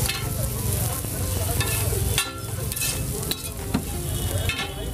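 An egg-and-bread omelette sizzling in butter on a large flat griddle, with a metal spatula scraping and knocking against the griddle several times.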